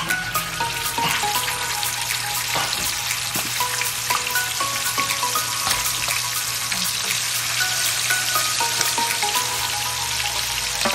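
Chicken wings frying in hot oil in a shallow pan, a steady crackling sizzle that jumps up in level at the start as a wing goes into the oil.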